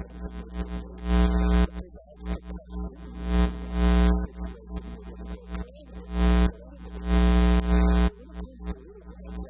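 Sound-system hum and buzz: a steady low hum with a stack of flat buzzing tones that swells loud and fades back several times, every second or two.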